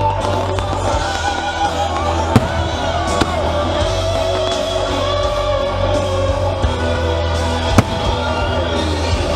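Loud music with singing and a heavy bass line, played over a fireworks display. Three sharp firework bangs cut through it: about two and a half seconds in, about three seconds in, and near the end.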